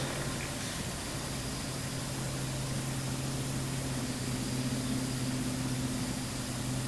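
Steady background hiss with a low, even hum, and no distinct event.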